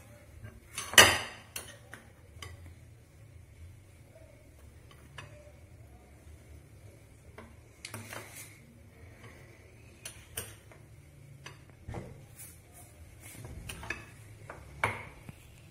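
Metal spoons clinking and scraping against glass mixing bowls as chocolate cookie dough is stirred and more mix is spooned from one bowl to another: scattered clinks, the loudest about a second in.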